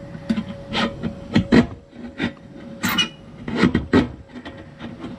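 A knife blade sawing through the thin aluminium wall of a beer can, scraping and crinkling the metal in short, uneven strokes, a few each second.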